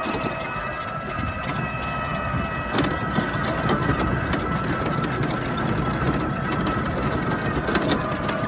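Footsteps crunching on a gravel driveway, over a steady mechanical whine from a motor in the background.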